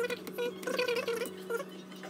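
Kitchen knife slicing through a peeled banana, with a few light taps of the blade on a plastic bowl, over a steady electrical hum and brief faint pitched sounds in the background.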